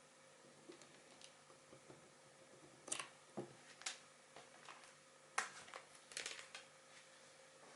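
Scattered light clicks and rustles of hands handling a phone and USB cables, over a faint steady hum. The clicks are sharpest about three seconds in and again around five to six and a half seconds in.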